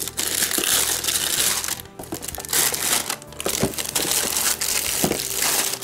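Clear plastic shrink-wrap crinkling and crumpling as it is cut open and pulled off a brick of cardboard booster boxes, in irregular stretches with short breaks about two and three seconds in.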